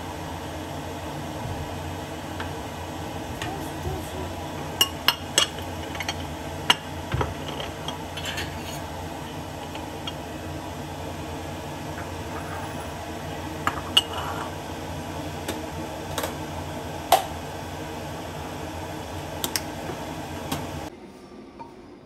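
Dishes and utensils clinking a handful of times over a steady background hum. The hum cuts off suddenly near the end.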